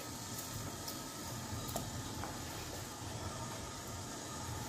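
Steady low hiss and hum from a pot of water heating on a kitchen stove.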